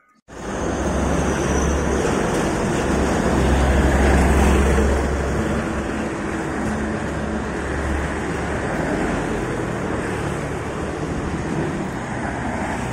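Road traffic passing, trucks among it: a steady wash of engine and tyre noise, with a low engine rumble swelling about three to five seconds in.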